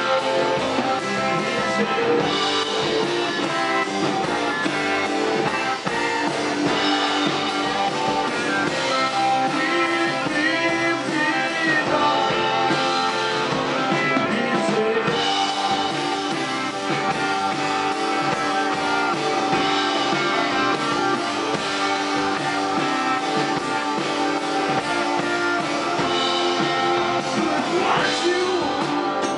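A live band playing a rock song on electric and acoustic guitars with keyboard and drums, with a voice singing at times.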